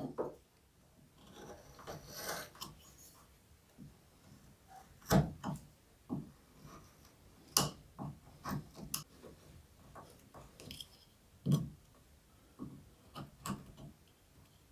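Carving gouge pushed by hand through the wood of a spoon being carved: scraping cuts, then a string of short, sharp clicks as chips are sliced off. The loudest clicks come about five, seven and a half and eleven and a half seconds in.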